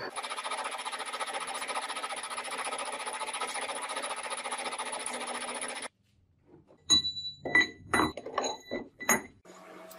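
Metal lathe turning a metal bar: the steady scraping hiss of the cut with a thin high whine, cutting off suddenly about six seconds in. After a short pause come five sharp metallic clinks that ring briefly, and a low steady hum starts near the end.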